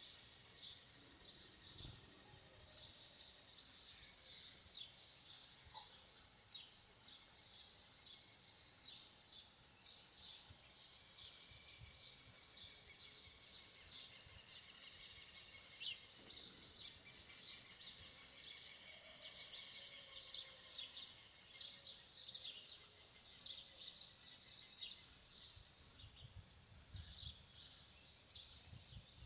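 Faint birds chirping in the countryside: a dense run of short, high chirps over a low background hiss.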